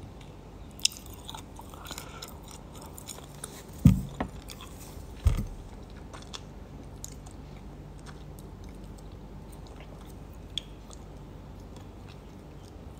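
A person chewing and biting food close to the phone's microphone, with scattered faint clicks and two low thumps about four and five seconds in.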